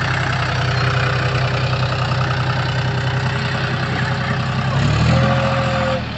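Diesel tractor engines running steadily while a Massey Ferguson 241 DI is stuck in deep mud. The engine note shifts about five seconds in.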